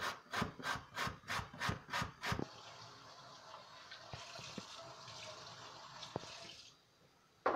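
Carrot being grated on a four-sided metal box grater over a wooden board: regular strokes about three a second, stopping about two and a half seconds in. Then a steady hiss for about four seconds that cuts off, and a single knock at the very end.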